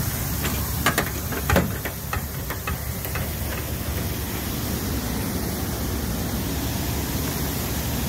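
Steady rushing noise outdoors on a rooftop next to a cooling tower, with a few sharp knocks and clicks in the first two seconds.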